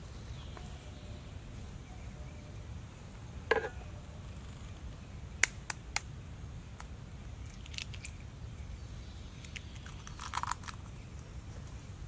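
A knife blade tapping an eggshell: a louder knock, then three sharp clicks in quick succession, and a short crackle near the end. A low, steady background rumble runs underneath.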